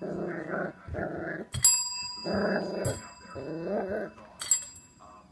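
West Highland White Terrier puppy growling in four short bursts as he attacks a chrome desk bell. The bell is struck twice and rings out, about one and a half seconds in and again near the end.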